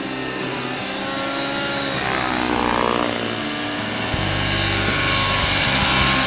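Large radio-controlled scale Alouette III model helicopter flying a low pass, its rotor and engine running steadily. It sounds fuller from about four seconds in and is loudest near the end as it passes close.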